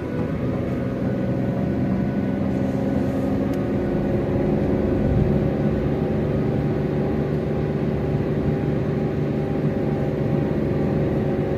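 A car driving along: steady engine and tyre-on-road noise with a constant drone.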